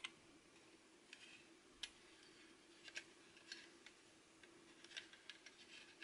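Faint fingertip and fingernail taps and clicks on a plastic MiniDisc cartridge, scattered and irregular, a dozen or so short ticks.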